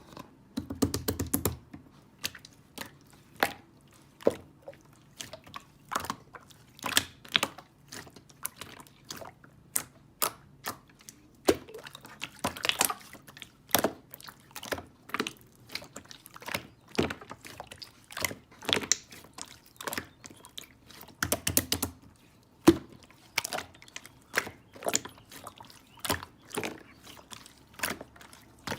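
Close-miked chewing and wet mouth sounds: irregular sharp clicks and smacks, with denser crunchy clusters about a second in and again near 21 to 22 seconds.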